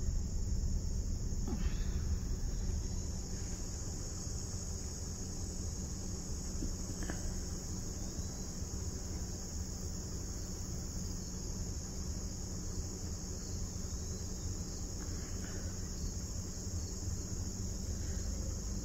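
Steady, high-pitched chorus of insects, crickets, shrilling without a break, over a low steady rumble.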